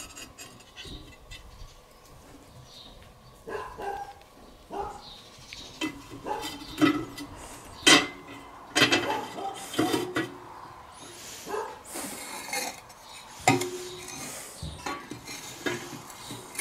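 Metal cooking grate and ceramic pizza stones being set into a mini kamado grill: a series of scattered clinks and knocks of metal and stone against the grill's ceramic body, starting a few seconds in, with the sharpest knock about eight seconds in.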